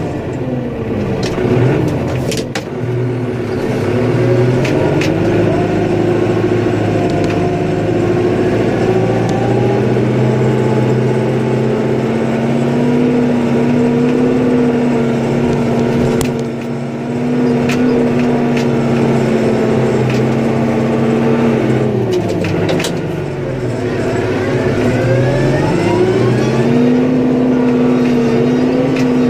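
Engine of a snow-plowing vehicle running under load. Its revs sag and climb back just after the start and again about three-quarters of the way through, with a few sharp clicks over it.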